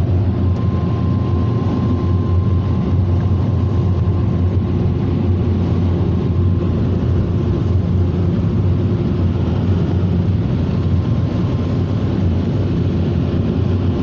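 Onboard dryer blowers of a Ryko Softgloss MAXX rollover car wash running, a loud, steady roar with a low hum as they dry the car after the spot-free rinse.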